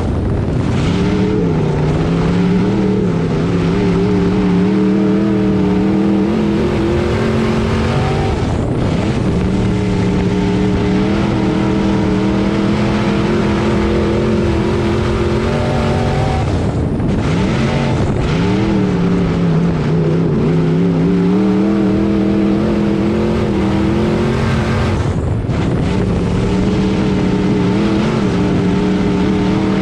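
Dirt-track hotmod race car's engine running at racing speed, heard onboard. Its pitch falls as the driver lifts for the turns and climbs again on the straights, several times.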